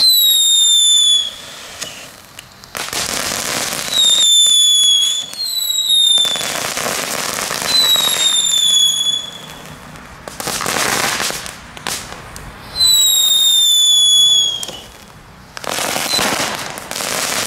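A batch of knetterkings, small category 1 ground fireworks, going off together: about six short whistles, each falling slightly in pitch, alternate with spells of crackling hiss.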